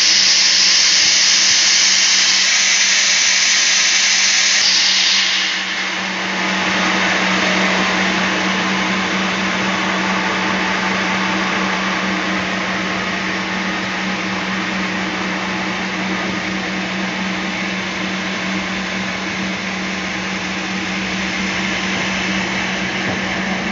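Band sawmill running steadily. About five seconds in, its sound changes: a loud high hiss drops away and a steady hum with broader machine noise continues.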